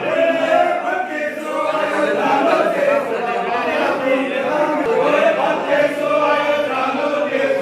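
A group of men chanting together, many voices overlapping in one continuous chant.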